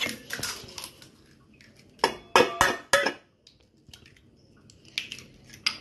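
Eggs being cracked against the rim of a stainless steel bowl: sharp taps of shell on metal, one at the start, a quick run of four about two to three seconds in, and two lighter ones near the end.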